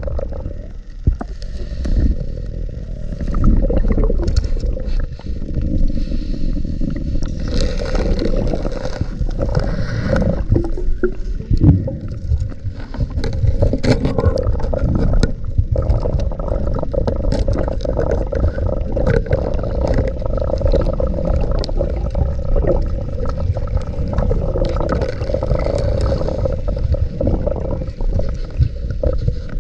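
Underwater noise of a scuba diver swimming through a silted cave sump: a continuous rumble of regulator bubbles and water movement, with many scrapes and knocks of gear and camera against rock.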